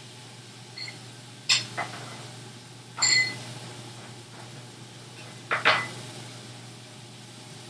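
A metal utensil knocking and clinking against a pan several times, one strike ringing briefly, over a low steady hiss.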